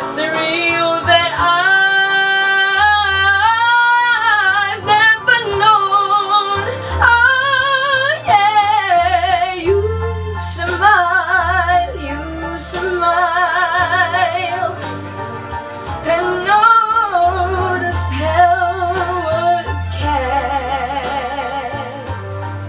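A young girl singing a slow ballad over a karaoke backing track, with long held notes, wide vibrato and quick runs up and down the scale.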